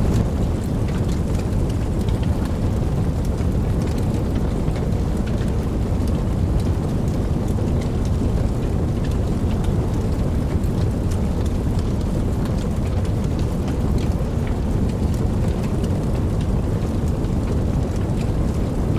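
Steady heavy rainfall with a deep, continuous rumble underneath and many sharp drop ticks scattered through it.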